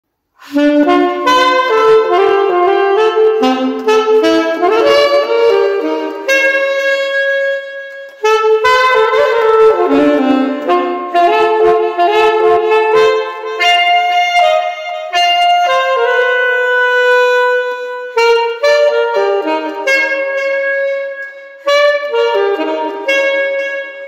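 Bebop jazz recording with saxophone-led horns playing quick melodic lines, pausing briefly between phrases.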